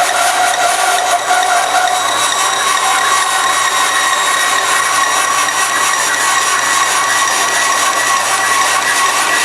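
Forrest Manufacturing Model 2054R vertical-blade bandsaw cutting steadily through a tightly wound roll of thin plastic thermoforming sheet, a loud continuous cutting noise with a whine whose pitch steps higher about two seconds in. The sheet roll cuts like a solid block of material.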